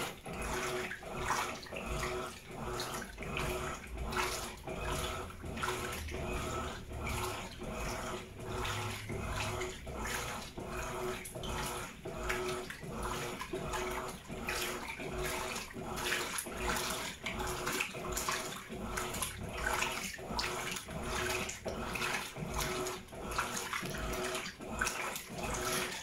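Electrolux LED17 top-load washing machine agitating a heavy blanket in a full tub of water: the agitator reverses in short, even strokes, a little over one a second, each with a swish of water, over a steady motor hum. The strokes are short, too short for the owner's liking.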